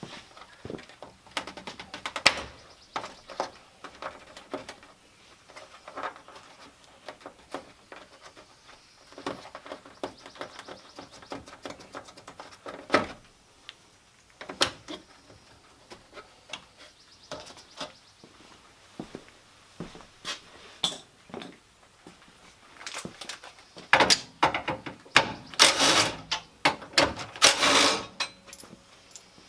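Hand tools and metal car parts clicking, knocking and clattering as parts are unbolted and handled, with scattered sharp knocks throughout and a busier, louder run of clatter near the end.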